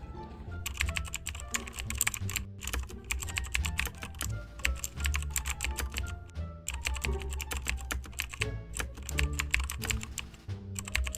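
Rapid, irregular clicking of computer keyboard typing, pausing briefly a couple of times, over background music with a deep bass line.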